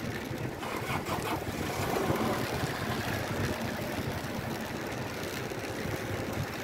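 Steady wind and road noise from riding a road bicycle along a wet street: wind buffeting the microphone over the hiss of the tyres on damp asphalt.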